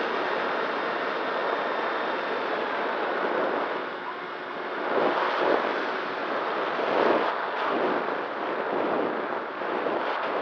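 Airflow rushing over the onboard camera microphone of a Nano Talon FPV plane in flight, with the faint steady whine of its electric motor and propeller. The rush rises and falls as the plane banks and dives.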